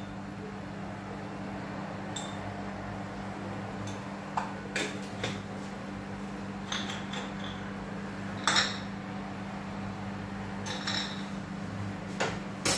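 Scattered clinks and taps of small glass spice jars, their lids and a spoon against a metal cooking pot and the worktop, the loudest about eight and a half seconds in, over a steady low hum.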